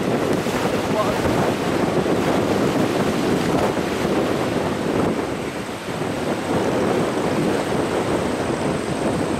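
A CF-18 Hornet's twin General Electric F404 turbofans running at taxi power as the jet rolls along: a steady rushing roar, with a faint high whine joining about halfway through.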